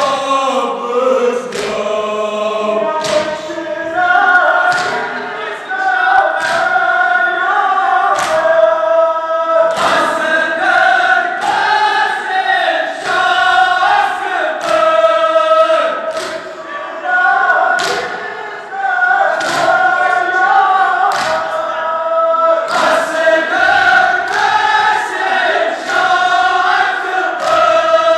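A crowd of mourners chanting a Kashmiri nawha together, with chest-beating (matam) thuds landing in time, roughly once a second.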